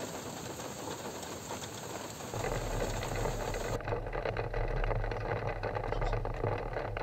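Rain on a car window as a steady hiss, then, about two seconds in, a steady low hum of the Ford Everest's engine idling, heard inside the cabin.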